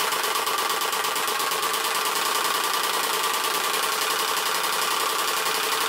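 Turbospoke V2.0 bicycle exhaust with its quietest '125' card fitted: the spokes of the spinning rear wheel rattle over the plastic card in a fast, steady stream of ticks that make an engine-like buzz.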